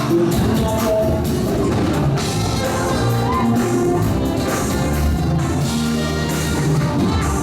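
Gospel band music with a steady drum-kit groove under held notes from the other instruments.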